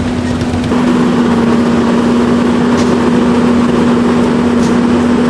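An engine running at a steady speed with a constant hum, stepping up in loudness suddenly about a second in.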